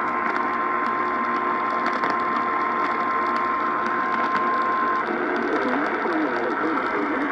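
NOAA Weather Radio broadcast audio over a noisy, hissing signal. A steady single tone near 1 kHz holds and cuts off suddenly about five seconds in, leaving wavering, garbled noise, typical of the station's troubled phone-line feed.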